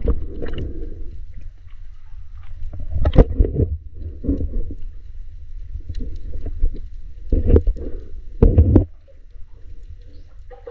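Muffled sound heard underwater around a snorkeller: a constant low water rumble with several short gurgling bursts of bubbles and water movement, the strongest about three seconds in and twice more between seven and nine seconds.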